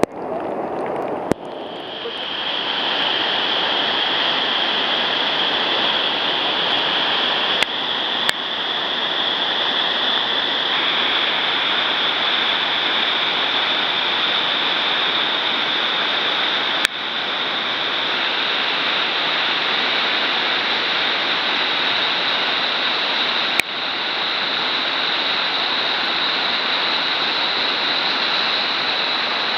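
White water rushing steadily over a river weir and churning in the stopper below it, with a few brief clicks where the footage cuts.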